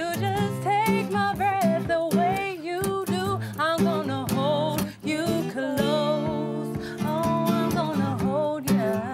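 A song playing: a singing voice over acoustic guitar and backing instruments.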